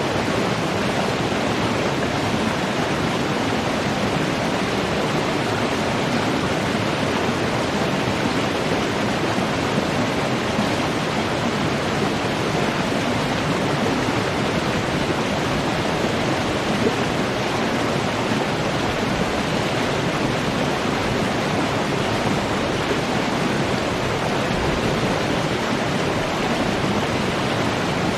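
Running water rushing steadily, one even hiss that never breaks or changes.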